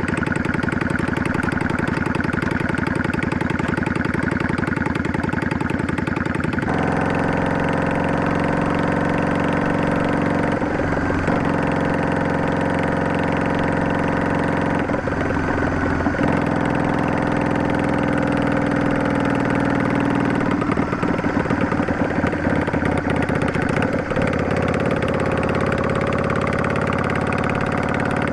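Yamaha DragStar 400's air-cooled V-twin running through a Garage T&F Vent Type 2 aftermarket muffler with an inner silencer, the bike under way on the road. The engine note changes abruptly about a quarter of the way in and twice more around the middle as the revs shift.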